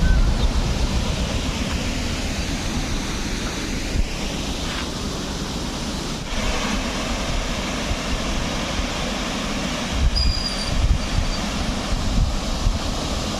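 Steady rush of water at the dam, with wind buffeting the microphone in gusts, strongest about ten seconds in.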